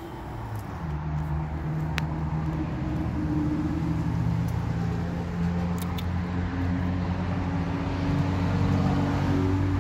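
A motor running with a steady low hum that grows louder over the first couple of seconds, then holds; a couple of faint clicks.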